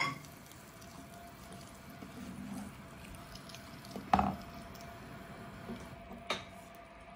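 A wooden spoon stirs a thick yogurt-based mango curry in a clay pot, making soft wet sloshing sounds. The spoon knocks sharply against the pot a little over four seconds in, and more lightly about two seconds later.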